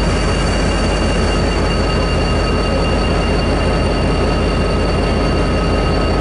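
A-class diesel-electric locomotive A66 idling at close range, a steady low engine rumble with a constant whine on top.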